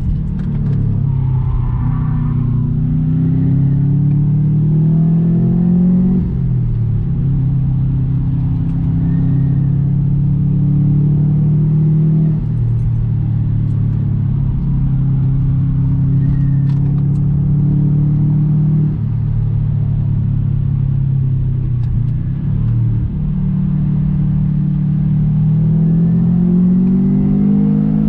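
2003 Subaru Impreza WRX STI's turbocharged flat-four boxer engine pulling through the gears, heard from inside the cabin. The engine note climbs under acceleration, drops sharply at gear changes about 6 and 12 seconds in and again later, holds steadier in between, and climbs once more near the end.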